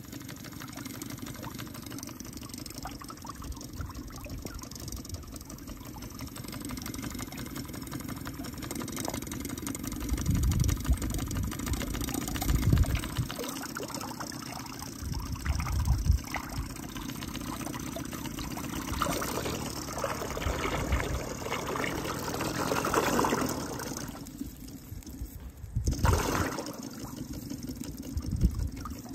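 Cheddar Proteus twin-cylinder model steam engine running under steam, driving a propeller that churns the water in a tub, with splashing that grows louder about two-thirds of the way through. A few low rumbles come and go.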